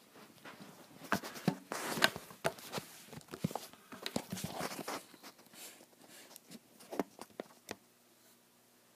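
Handling noises: a string of clicks, knocks and rustling, busiest between about one and five seconds in, then a few sharp clicks near the end.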